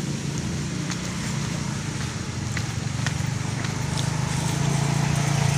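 A small engine running steadily with a fast, even pulse, growing louder over the last couple of seconds, with a few faint clicks over it.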